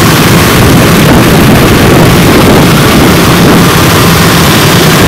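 Honda Win motorcycle engine running steadily while riding in traffic, with loud wind and road noise on the microphone.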